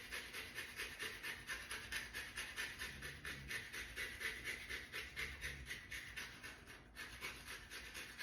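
Lemon being grated for zest: quick, even rasping strokes of the rind across a grater, about five a second.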